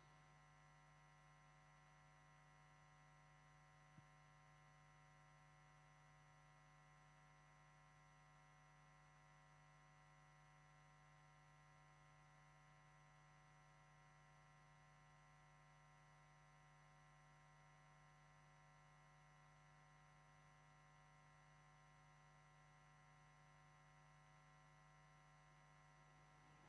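Near silence: a faint steady hum, with one small click about four seconds in.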